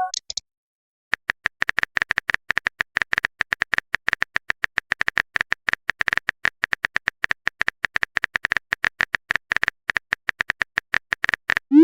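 Phone keyboard typing sound effect: rapid, irregular clicks, several a second, starting about a second in and running for about ten seconds. Right at the end, a rising swoosh begins, the message-sent sound.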